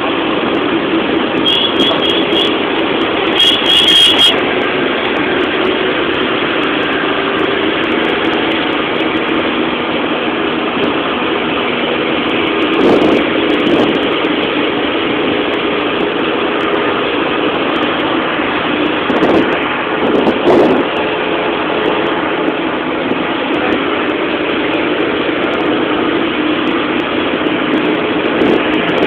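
Steady engine and road noise of a moving vehicle heard from inside it, the engine hum holding an even pitch. Two short runs of quick high beeps sound about two and four seconds in, and there are a few brief louder bumps later on.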